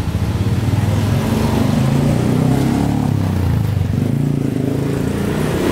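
A motorcycle engine running steadily near idle, its pitch wavering slightly up and down.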